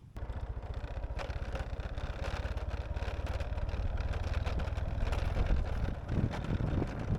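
A vehicle engine running steadily with a fast, even low pulse over road and wind noise, growing somewhat louder toward the middle and dipping briefly about six seconds in.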